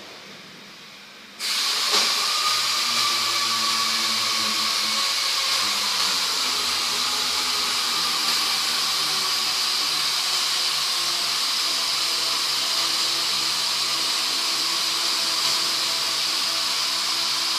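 A machine starts abruptly about a second and a half in and runs steadily with a loud hiss and a thin whine.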